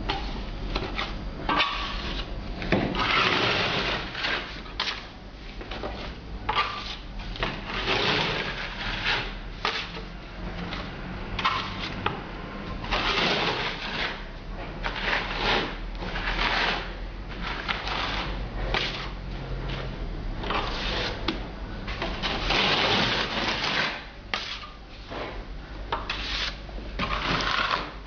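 Steel trowel scraping and spreading grainy mineral decorative render, in repeated irregular rasping strokes of a second or two each; at the start the render is scooped from a plastic bucket with a pointing trowel.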